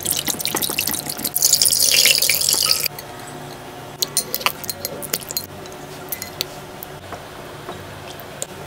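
Wire whisk beating liquid coffee in a glass bowl: sloshing, with the wires clicking against the glass. It stops abruptly about three seconds in, and a metal spoon then clinks and scrapes against a glass dish of set coffee jelly, the clinks growing sparser.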